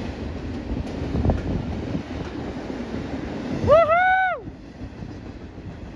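Double-stack container cars of a freight train rolling past: a steady rumble of wheels on rail, with wind on the microphone. A man gives a loud whoop about four seconds in, and the rumble is lower after it.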